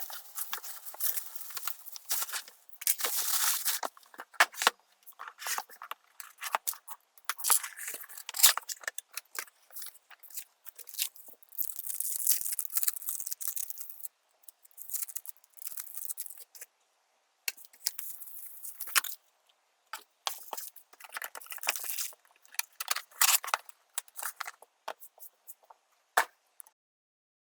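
Packaging being handled and opened by hand: irregular bursts of rustling, crinkling and tearing, with short gaps between them.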